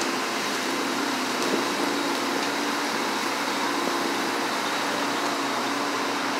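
Construction machinery running steadily: an even mechanical hum with a faint droning tone.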